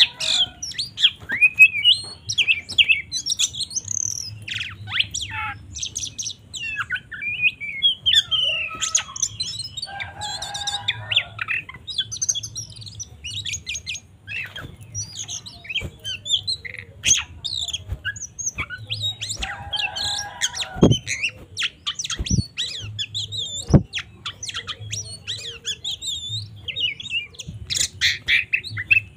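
Oriental magpie-robin (kacer) singing a fast, varied song of whistles and chirps, broken three times by a harsh buzzy call. This is the agitated fighting song used to rile up other magpie-robins. A faint low hum runs underneath.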